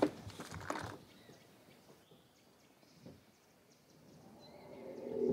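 Quiet forest ambience with faint, scattered high bird chirps. Near the end a low animal call swells up.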